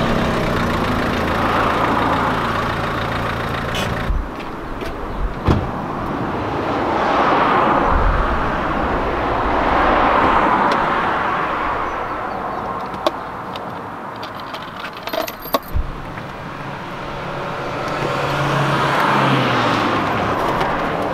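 Cars passing on a road one after another, each swelling and fading away. There are a few sharp clicks and knocks as a car's door and roof box are handled.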